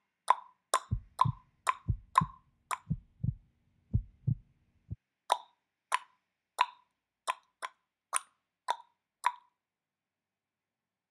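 A series of short, sharp plops, about two a second, with a run of low thuds mixed in between about one and five seconds in; the plops stop about two seconds before the end.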